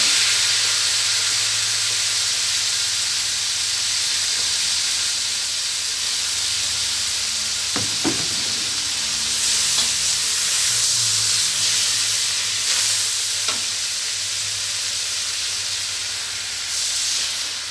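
Water spinach sizzling in hot oil in a stainless steel wok, a loud, steady hiss from greens just dropped into the oil. A few short knocks come partway through.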